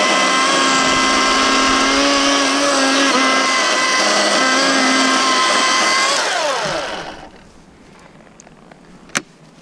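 Milwaukee M18 Fuel cordless chainsaw's brushless electric motor running steadily under load, cutting through a fallen log. About six seconds in it is released and winds down with a falling whine, and a single sharp click follows near the end.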